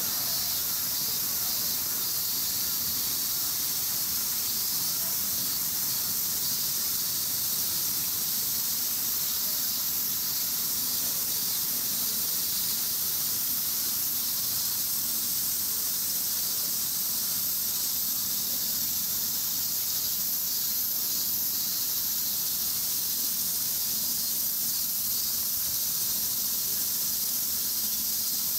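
Steady, high-pitched chorus of insects, an unbroken shrill hiss that swells slightly now and then.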